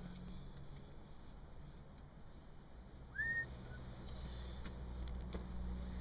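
One short whistle-like chirp about three seconds in, sliding up quickly and then held briefly, over a faint low rumble.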